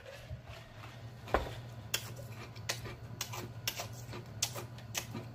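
A man drinking water from a glass pitcher, with a low thud just over a second in, then a run of sharp, uneven wet lip smacks and mouth clicks, one or two a second.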